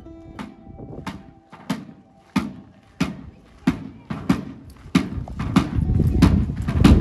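Military side drum beaten in a steady marching beat, about three strikes every two seconds. The drumming grows louder and fuller about five seconds in.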